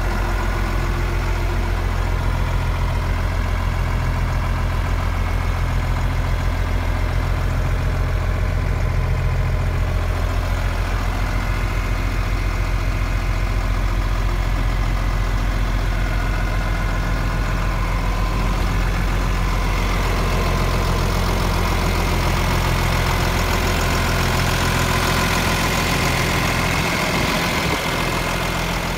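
1975 John Deere 4630 tractor's six-cylinder diesel engine idling steadily. The sound grows somewhat brighter and hissier in the last third.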